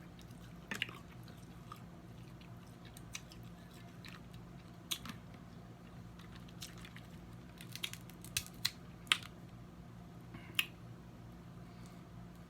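Snow crab leg shells being cracked and picked apart close to the microphone, with a scattering of sharp clicks and snaps and some chewing. A cluster of several cracks comes about eight to nine seconds in, over a steady low hum.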